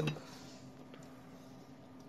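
Quiet room tone with a faint steady hum and one faint click about a second in.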